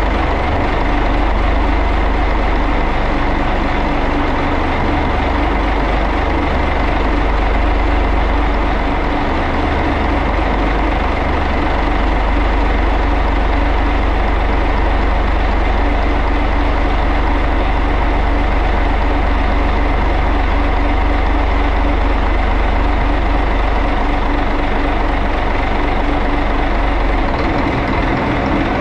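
Yanmar 6CZ turbocharged six-cylinder marine diesel idling steadily on its test run after servicing of the cylinder heads and fuel valves.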